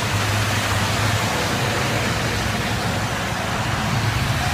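Steady hiss of heavy rain and of traffic tyres spraying water on a flooded highway, with a low hum underneath.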